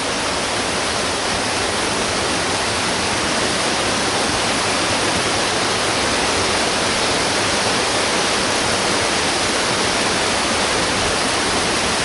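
Small forest waterfall and stream running high, a steady rush of water tumbling over stones. The channel is normally a mere trickle and is swollen by the wet winter weather.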